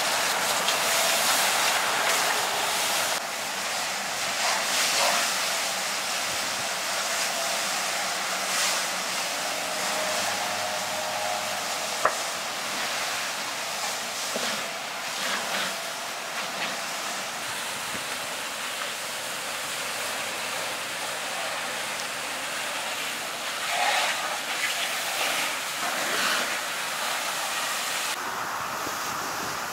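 Iveco truck burning: the fire hisses and rushes steadily, with scattered crackles and pops and one sharp pop about twelve seconds in.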